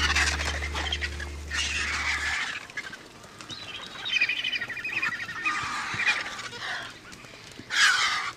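Griffon vultures squabbling over a carcass, giving a run of harsh calls with a fast chattering stretch midway and the loudest burst near the end. A low music drone underneath stops about two seconds in.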